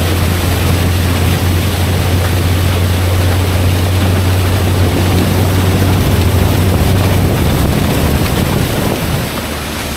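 Small outboard motor driving an inflatable tender at planing speed: a steady low drone under a rush of wind and spray on the microphone. The drone weakens near the end.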